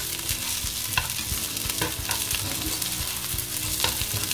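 Broccoli florets and chopped garlic sizzling in hot olive oil in a non-stick pan, stirred with a spatula that scrapes and taps the pan a few times.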